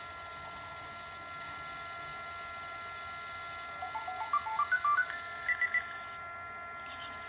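Sony Aibo ERS-111 robot dog playing its electronic tone sounds: a quick run of short beeps climbing in pitch about four seconds in, then three fast higher beeps.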